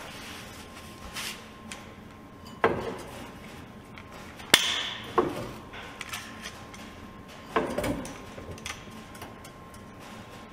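Scattered knocks and clanks of tools and parts being handled in a workshop: several separate impacts, the sharpest about four and a half seconds in.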